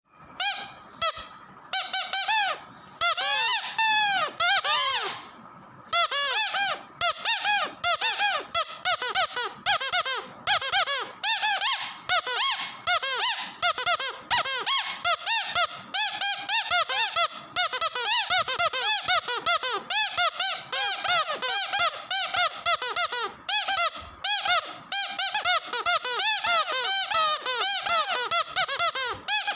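Squeaky dog toy squeezed over and over. Each squeak rises and falls in pitch. There are a few separate squeaks at first, then from about six seconds in a quick continuous run of several squeaks a second.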